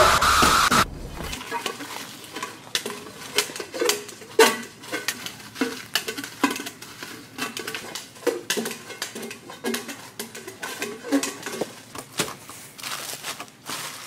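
A loud steady hiss cuts off about a second in. Then come irregular clinks, knocks and clatters of dishes and kitchen utensils being handled.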